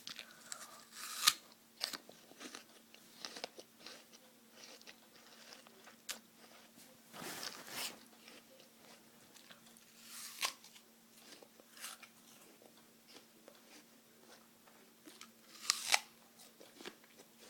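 Person biting into and chewing a raw apple, with crisp crunches at irregular intervals; the sharpest bites come about a second in and near the end. A faint steady hum runs underneath.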